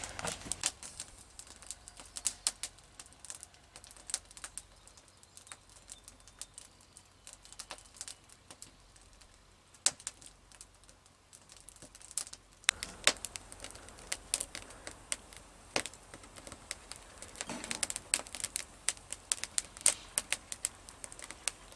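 Irregular sharp clicks and snaps, sparse for several seconds in the middle and busier again from about thirteen seconds in.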